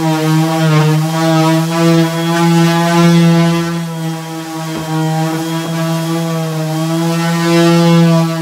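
Cordless drill/screwdriver fitted with an 80-grit sanding disc running steadily against varnished wood, a loud motor whine whose pitch wavers slightly as the disc is pressed into the panel.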